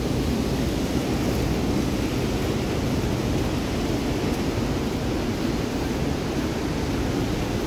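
Steady rush of white water from the Merced River and its waterfall on the Mist Trail, a constant roar with most of its weight in the low end.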